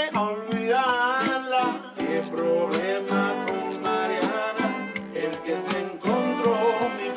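Music: plucked guitar with a wavering melody line that rises and falls in pitch.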